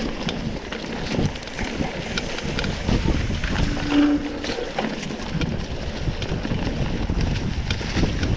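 Wind rushing over the microphone of a camera carried on a mountain bike ridden along a trail, with a steady stream of small rattles and knocks from the bumpy ride. A short low tone sounds about four seconds in.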